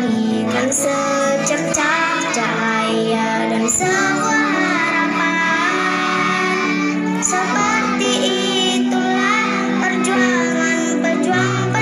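A group of young children singing together over recorded backing music with long held chords.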